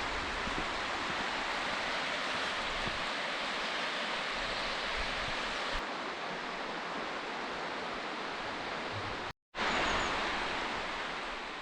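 Steady rushing outdoor noise with no distinct events. It cuts out for a moment about nine seconds in, then returns and begins to fade near the end.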